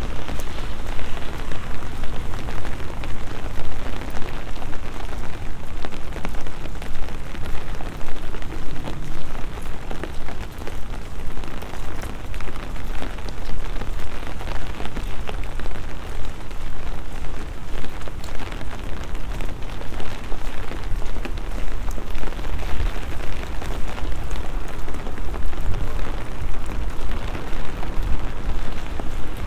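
Steady rain falling on wet paving and road: a dense patter of drops over a low, uneven rumble.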